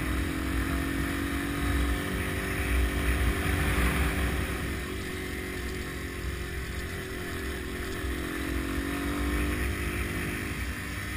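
Dual-sport motorcycle engine running steadily while riding along a dirt track, its note shifting slightly in pitch, with wind rumbling on the microphone.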